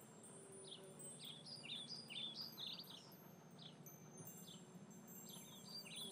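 Faint birdsong ambience: short, high chirps in scattered groups, busiest about one to three seconds in and again near the end, over a faint low hum.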